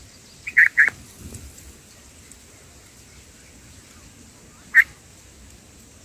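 Bulbul giving short, sharp calls at its nest: a quick run of three about half a second in, and one more near the end.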